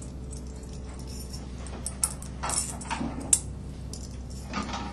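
Light metallic clicks and taps as steel spokes are slipped through the holes of an aluminium motorcycle wheel hub's flange and knock against it, the sharpest click a little past three seconds in, over a steady low hum.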